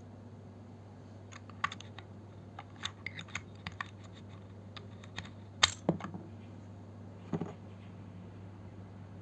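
Irregular clacks of keys on a Vortex VX5 Pro mechanical keyboard with JWICK Ultimate Black switches, about a dozen strokes with one louder clack a little past halfway.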